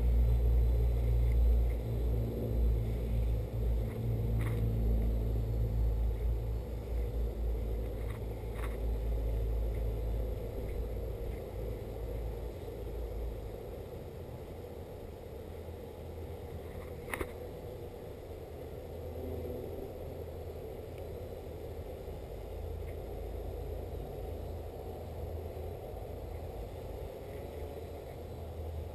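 Distant multirotor drone's electric motors and propellers humming steadily overhead. A low rumble is strongest in the first dozen seconds, and a few faint clicks are scattered through.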